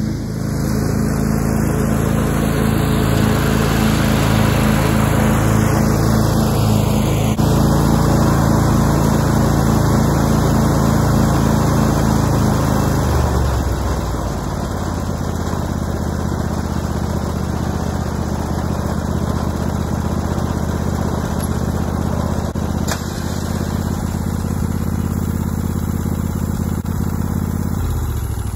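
Old Craftsman riding lawn mower running steadily while cutting grass; its 2001 engine runs well after a carburetor repair. About halfway through, the engine note drops lower and a little quieter.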